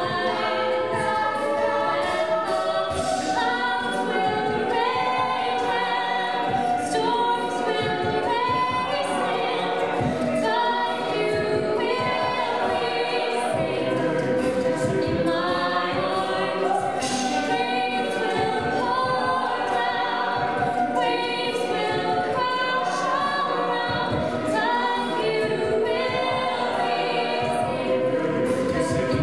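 Mixed-voice a cappella group singing, a female soloist leading over sustained backing harmonies, with vocal percussion keeping a steady beat.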